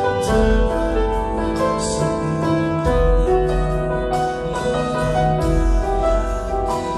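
Grand piano played solo: a slow melody over held chords, with a deep bass note struck every two to three seconds.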